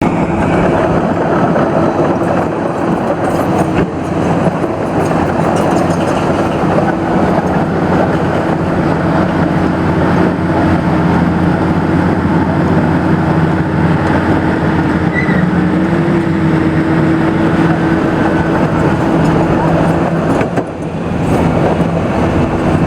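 Diesel engine of a BELAZ 45-short-ton off-highway mining haul truck running steadily, its pitch stepping up slightly about two-thirds of the way through, with a brief drop in level near the end.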